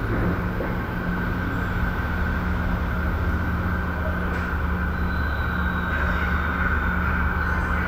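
Residential room tone: a steady low hum and rumble under an even hiss.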